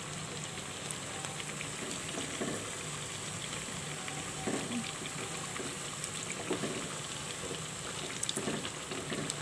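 Potato pakoras deep-frying in hot oil over a medium flame: a steady sizzle and bubbling, with a few light knocks of a wooden spatula against the pan in the second half.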